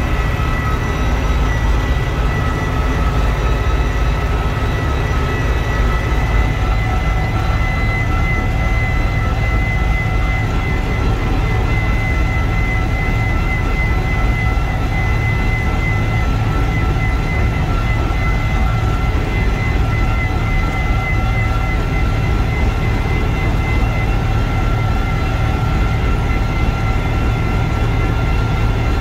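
Same Argon 80 tractor's diesel engine running steadily, with a steady high-pitched whine over it.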